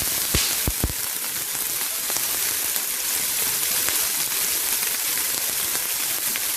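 Onion sizzling in hot olive oil with mustard seeds in a pan, a steady frying hiss, with a few low knocks in the first second.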